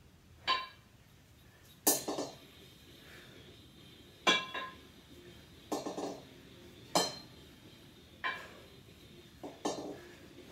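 Two 8 kg kettlebells clinking and knocking against each other during repeated double half snatches. There is a sharp metallic clank every second or so, some coming in quick pairs.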